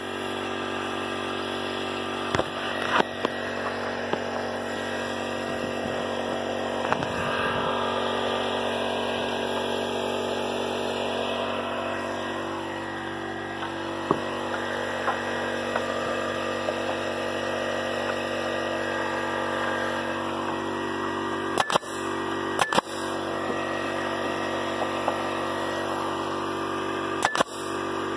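An air compressor's motor runs steadily with a constant droning hum. A pneumatic nail gun fires sharp shots in two short clusters in the last quarter.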